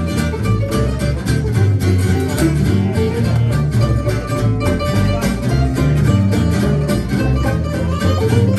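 Acoustic string band playing an instrumental passage: a bowed fiddle over strummed acoustic guitars, with stepping bass notes underneath.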